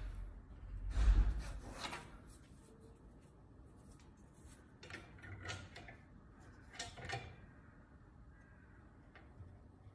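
Handling noise as a metal beam is picked up and fitted into a clamp stand on a bench: a low thump with a short scraping rustle about a second in, then briefer rubbing and scraping around five and seven seconds.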